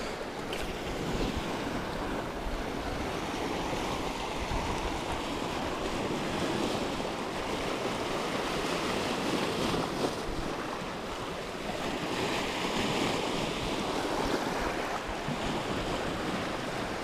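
Sea waves washing and breaking over shoreline rocks, a steady surf noise, with wind on the microphone.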